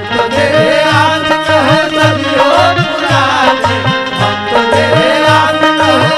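Bhojpuri folk stage music: a hand drum keeps a steady beat of about two strokes a second, its bass strokes sliding up in pitch, under a wavering melody line.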